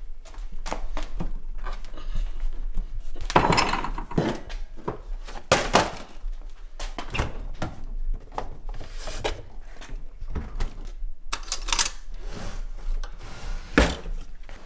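Irregular run of knocks, thuds and clatters from kitchen fittings being handled: a refrigerator door and wooden drawers opened and shut, with utensils rattling. The loudest knocks come about three and a half seconds in, about five and a half seconds in, and near the end.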